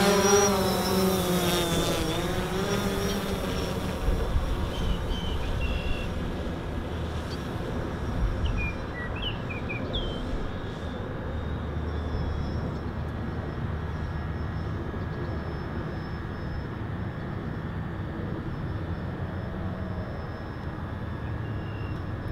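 DJI Phantom 4 quadcopter's propellers buzzing as it hovers low and climbs away, the pitch wavering and the sound fading over the first few seconds. After that a steady outdoor hiss with wind rumbling on the microphone and a few faint high chirps near the middle.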